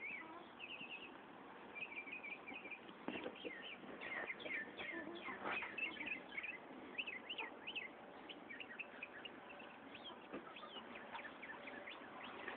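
Birds chirping: many quick, high chirps overlapping throughout, with a few light knocks among them.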